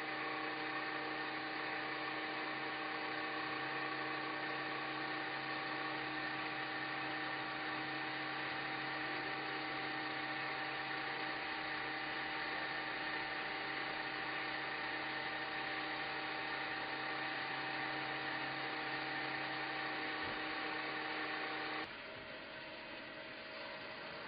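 CNC lathe running with a rotating live-tooling end mill cutting flats on a turned metal part: a steady machine whir with several steady whining tones. Near the end it drops to a quieter steady machine sound with different tones.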